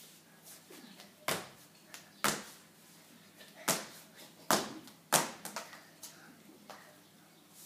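A child skipping rope on a tiled floor: five loud, sharp slaps of the rope and landing feet, unevenly spaced about a second apart, with fainter taps between.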